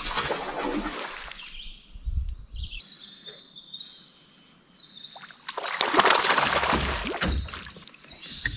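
Water splashing and sloshing beside a canoe, briefly near the start and louder for about two seconds past the middle, while a songbird sings short high whistled notes at several pitches.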